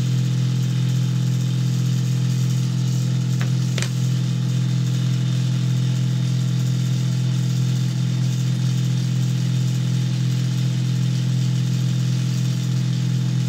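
A steady, loud low hum from a motor, unchanging throughout, with two faint clicks about three and a half to four seconds in.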